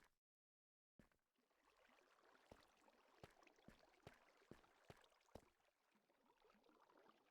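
Near silence: a faint hiss with scattered soft clicks, after a second of dead silence at the start.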